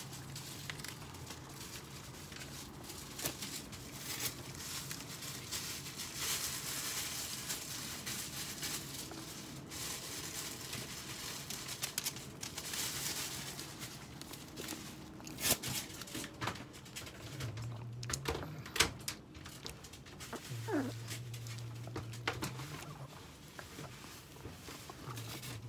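Long-haired Chihuahua moving around in a wire crate: paws scrabbling and rustling, with scattered clicks and knocks. A few short falling whines come in the second half.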